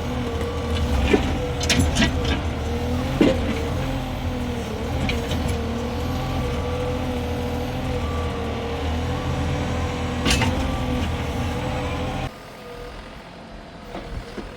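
Chinese mini excavator running, a steady engine drone with a held whine and several sharp clanks. The sound drops abruptly to a quieter run about twelve seconds in.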